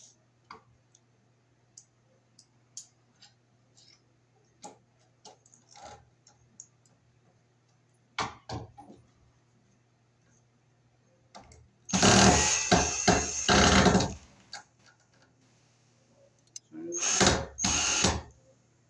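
Cordless drill driving 6-32 machine screws through a ceiling-fan bracket into a metal electrical box: one run of about two seconds, then a shorter run near the end. Light clicks of screws and parts being handled come before.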